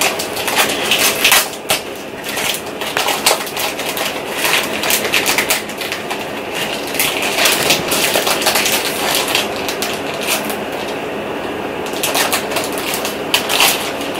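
Foil wrapper of a Pokémon card booster pack crinkling and crackling in the hands as the pack is opened and the cards are pulled out: a dense, continuous run of crackles.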